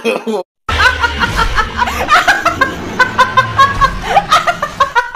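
A person laughing in rapid repeated bursts, several per second. There is a brief cut to silence about half a second in, before the laughter starts.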